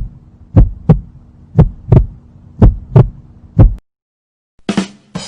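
Heartbeat sound effect: low paired lub-dub thumps about once a second over a faint steady hum, stopping after four beats. A brief sharp noise follows near the end.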